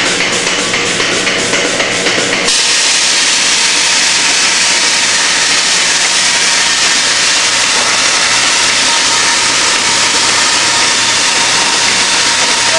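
Milking parlour machinery: a loud, steady hiss of air with a regular pulsing beat from the milking pulsators, the pulsing stopping suddenly about two and a half seconds in while the hiss carries on.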